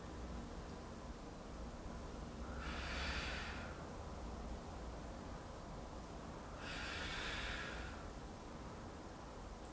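A woman exhaling hard through the mouth, twice, about four seconds apart, each breath out timed to a Pilates curl-and-twist crunch. A low steady hum lies underneath.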